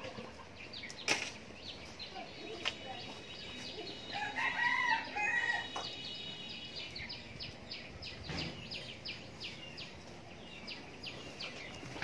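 A rooster crowing once, about four seconds in and lasting roughly two seconds, over rapid short chirps of small birds throughout.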